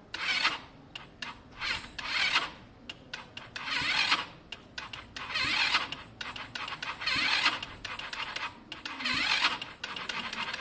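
Lexmoto Diablo scooter engine being cranked over in short repeated bursts, about one every second and a half, turning over sluggishly without firing. The owner suspects a weak battery.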